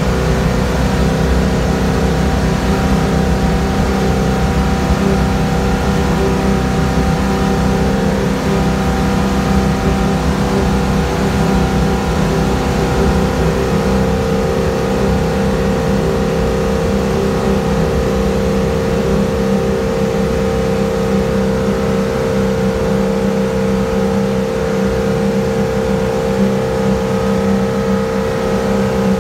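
Boat's inboard engine running steadily at cruising speed, heard from inside the cabin as a constant drone, its tone shifting slightly about halfway through.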